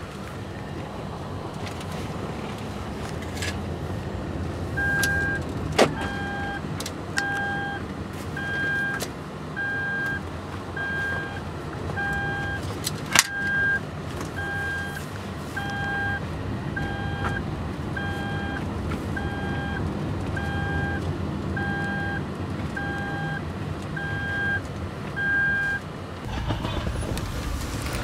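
Cabin of a 2010 Lexus RX350 on the move: a steady low hum of engine and road noise. From about five seconds in until near the end, the car's electronic warning chime beeps evenly, about four beeps every three seconds. Two sharp clicks stand out along the way.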